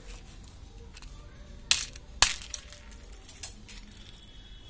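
Small white plastic toy phone case being prised open by hand: sharp plastic clicks and snaps, the two loudest close together a little under two seconds in, then a couple of lighter clicks.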